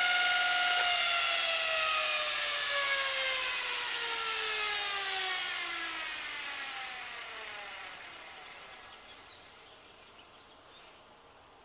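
General Electric 9-inch DC traction motor spinning unloaded with a steady whine. About a second in its power is cut, and the whine falls steadily in pitch and fades as the armature coasts down toward a stop.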